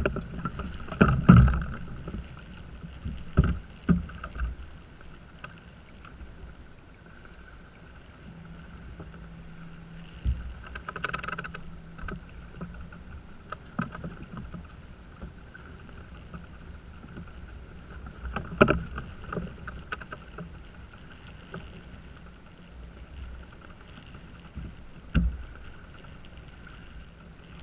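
Small sailing yacht under way: a steady rush of water and wind, broken by a few sharp knocks and thumps from the boat. The loudest knock comes about a second in.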